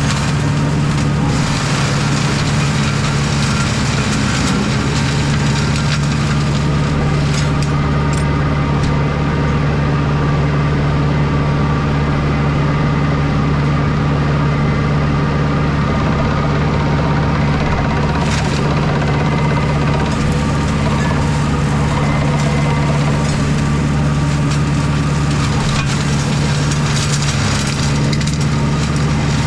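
Small tractor's engine running steadily while its mulcher shreds thick blackberry brambles, with a few sharp cracks of woody canes being broken.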